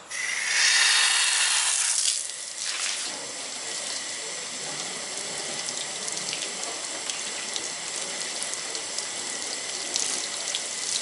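Water from a garden hose pouring onto a waxed car hood, a steady splashing hiss as it sheets off the paint, louder for the first two seconds or so.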